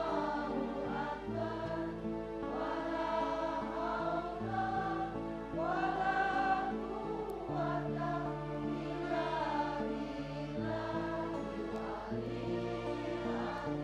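A group of voices chanting an Islamic devotional song in unison, over steady held low notes that shift pitch every couple of seconds.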